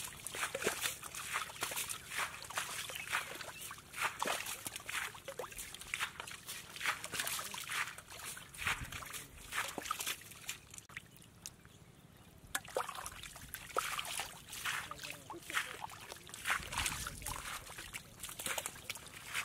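Irregular splashing and squelching in shallow, muddy water as catfish thrash and a person wades through the mud catching them. It eases off for a couple of seconds about eleven seconds in, then picks up again.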